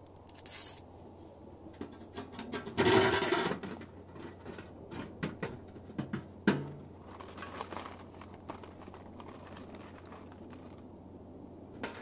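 Handling noise from a thin-walled metal tent stove and its pipe sections being moved on a tent groundsheet: a burst of rustling about three seconds in, then a sharp knock and scattered light clinks and scrapes.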